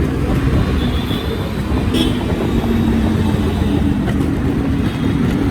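A Yamaha RX two-stroke motorcycle engine running steadily, with road and traffic noise around it.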